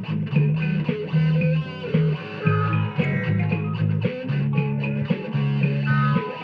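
Rock music: a band playing with electric guitar and a steady, prominent bass line.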